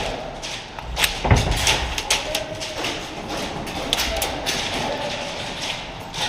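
A string of irregular sharp taps and knocks, the loudest a heavy thump about a second in.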